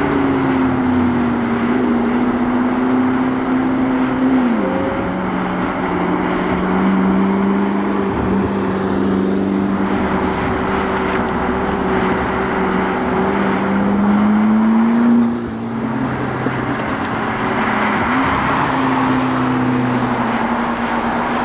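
McLaren MP4-12C's twin-turbo V8 running with a steady drone. Its pitch steps down about four seconds in, climbs slowly, dips briefly, and steps back up a few seconds before the end.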